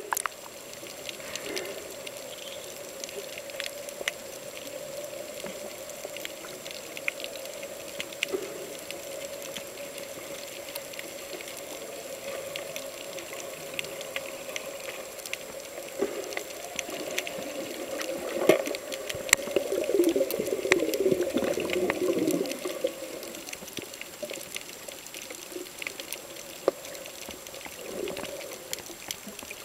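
Underwater sound picked up by a camera in its housing: a steady hum with scattered faint clicks and crackles. About 18 seconds in it swells into a louder rush of water noise for a few seconds, then settles back.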